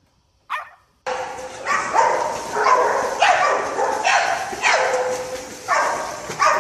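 A dog barking repeatedly, about eight barks at a steady pace, starting about a second in.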